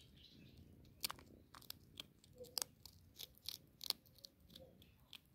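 Hedgehog chewing dry cat food kibble: a faint, irregular run of sharp crunches for about three seconds, easing off near the end.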